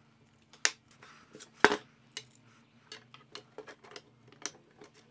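Light clicks and knocks of 3D-printed plastic parts being handled and fitted onto steel linear rails, with one sharper knock about a second and a half in.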